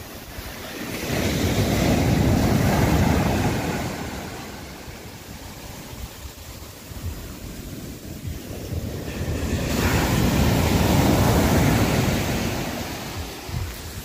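Sea waves washing onto the shore: two waves, each swelling over a second or two and then fading away.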